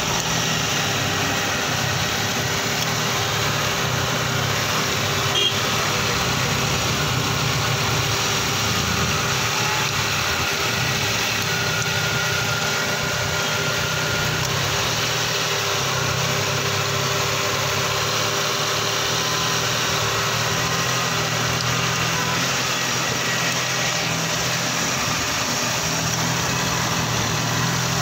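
Ford Ikon 1.3-litre petrol engine idling steadily, heard close up in the open engine bay.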